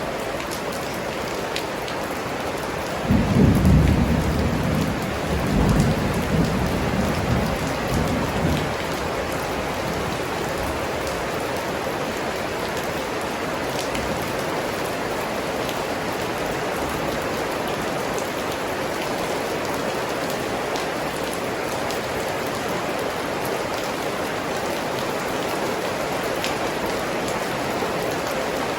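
Steady rain falling, with a roll of thunder about three seconds in that rumbles on in several swells for about six seconds before fading.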